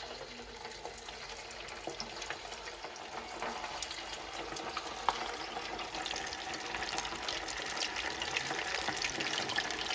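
Chicken pakodi pieces deep-frying in hot oil, a steady sizzle full of small crackles that slowly grows louder.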